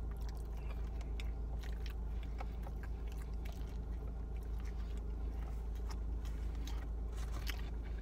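Close-up chewing and biting of pizza, with many short wet mouth clicks and smacks, over a steady low hum.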